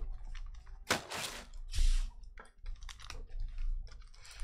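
Foil-wrapped trading card packs crinkling as they are handled and laid out on a table, with two louder rustles about one and two seconds in.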